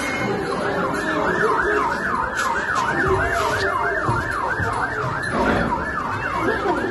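Ambulance siren in a fast yelp, sweeping up and down about three times a second without a break.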